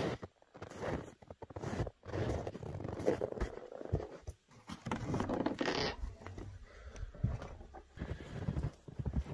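Footsteps crunching in snow at an uneven walking pace, with scraping and rustling.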